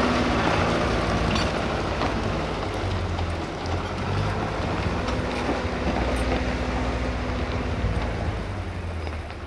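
Farm tractor's diesel engine running steadily as it tows a loaded trailer away over a level crossing, the sound slowly fading as it moves off. A few light knocks from the trailer jolting over the crossing.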